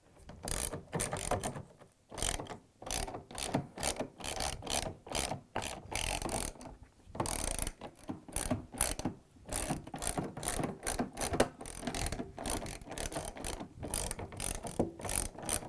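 10mm socket ratchet clicking in rapid back-and-forth strokes as the bolts joining the two halves of a washer tub are tightened, with a couple of brief pauses.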